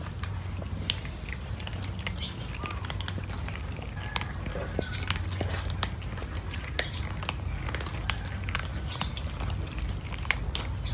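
Several cats crunching dry kibble, a steady scatter of small, irregular crunches and clicks, over a low, steady hum.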